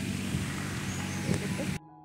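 Steady outdoor background noise with a faint low hum, cut off abruptly near the end and replaced by soft piano music.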